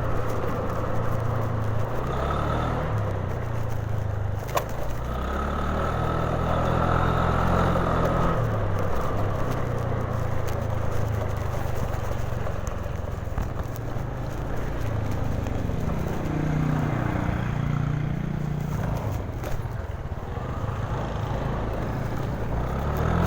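Honda Genio scooter's small single-cylinder engine running while riding in traffic, its pitch shifting as the speed changes. About two-thirds of the way through there are rising and falling tones.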